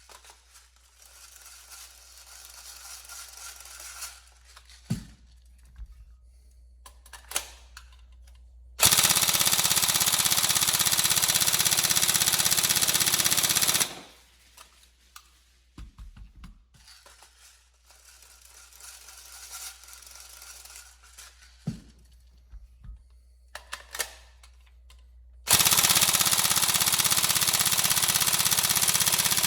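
Tokyo Marui 416 Delta NGRS airsoft electric rifle firing two long full-auto strings of about five seconds each, one near the middle and one toward the end, with a few handling clicks in between. The gun is being test-fired after a rebuild with a new Prometheus piston and AOE correction, to check it no longer breaks pistons.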